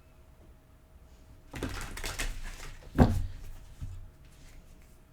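Tarot cards being handled: a rustle of about a second, as of shuffling, then one sharp tap on the table.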